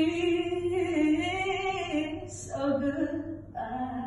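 A woman singing solo, holding one long note for about two seconds, then moving through shorter notes.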